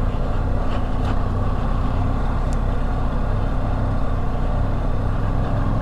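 Adventure motorcycle engine running steadily while riding slowly over soft gravel, with road and wind noise.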